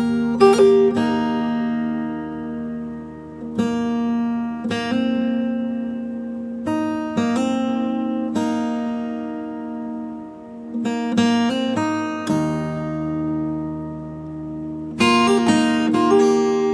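Acoustic guitar playing slow instrumental music: clusters of plucked notes and chords, each left to ring out for a few seconds before the next strokes.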